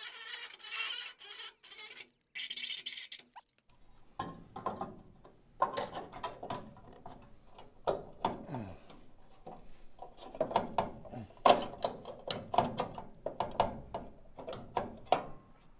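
A small cordless grinder runs in a few short stop-start bursts, grinding rusted sheet steel to open a notch in the lower A-pillar. After that come scattered clicks, knocks and scrapes as a sheet-metal patch panel is offered up against the body and shifted for fit.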